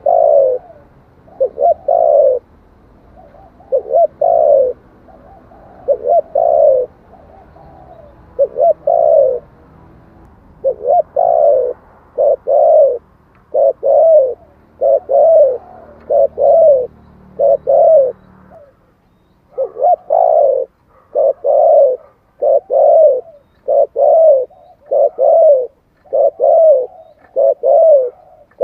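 Spotted dove cooing in a long run of short coos, used as a decoy call to stir up wild doves. The coos come in uneven groups at first, then about once a second from about 20 seconds in.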